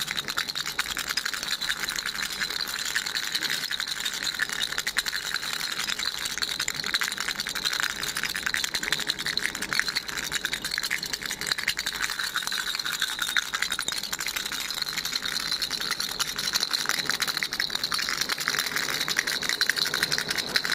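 Baby rattle shaken steadily: a continuous, dense clatter of many quick small clicks.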